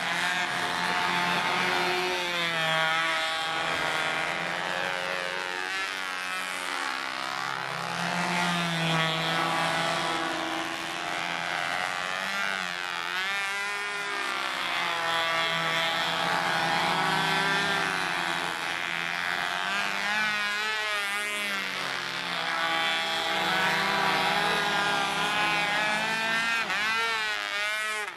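Several control-line model biplane engines (Bi-Slobs) buzzing together as the planes circle the pilots. Their pitches rise and fall and weave across one another as each plane passes.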